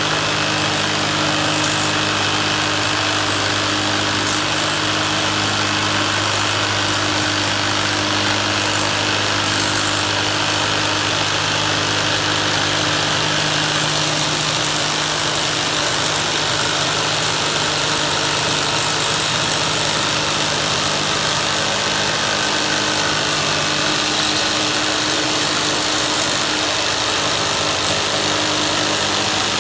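Power saw running steadily while cutting a Lexan polycarbonate sheet, a constant machine hum under a bright hiss.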